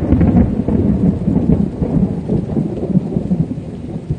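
Thunder rumbling: a long, low rolling rumble, loudest at first and easing off toward the end.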